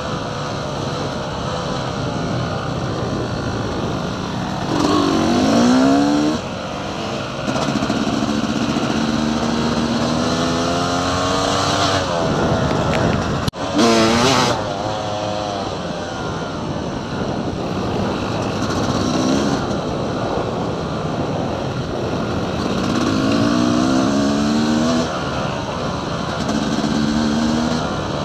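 Dirt bike engine running under way on a trail ride, its pitch climbing in rising revs several times as the rider accelerates and shifts, with a dense steady rush underneath.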